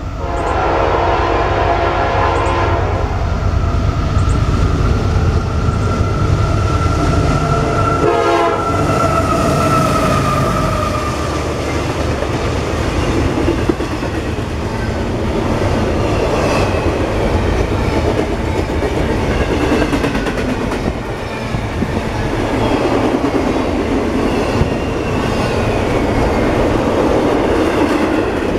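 A CSX diesel freight locomotive sounds its horn in the first few seconds as it approaches. The lead units then pass, and a long double-stack container train rumbles by, its wheels clacking over the rail joints.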